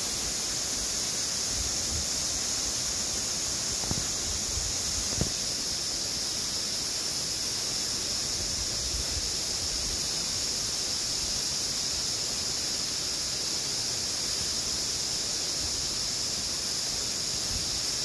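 Steady rushing of a waterfall, an even hiss strongest in the high range, with a couple of soft knocks about four and five seconds in.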